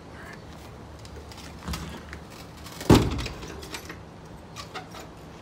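Metal rear tailgate of a livestock trailer being lifted and shut: a softer thump, then a loud metal clang with a short ring about three seconds in, followed by light clicks and rattles as it is latched.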